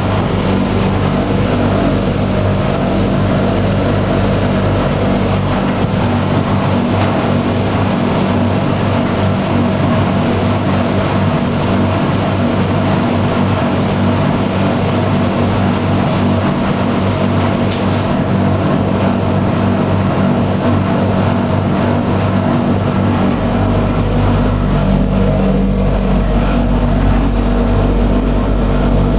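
Elux commercial washing machine running, its motor turning the drum steadily. About two-thirds of the way through, a deep low hum comes in and stays.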